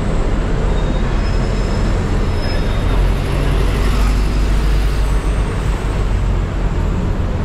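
Busy city traffic: double-decker buses and cars running past, a steady low rumble.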